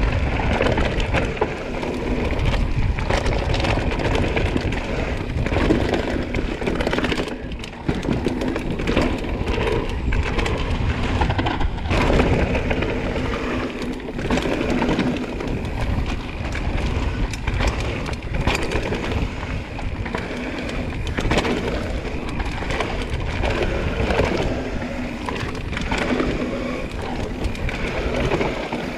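Propain Tyee enduro mountain bike descending a dry, dusty dirt trail at speed: tyres rolling and scrabbling over the parched surface, with frequent sharp knocks and rattles from the bike over bumps and a steady rushing noise.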